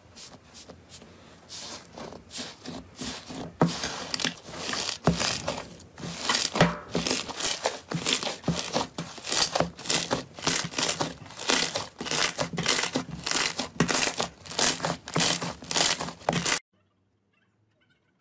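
Pink slime being kneaded and pressed by hand, giving a quick run of sharp crackling pops and squelches. It cuts off suddenly near the end.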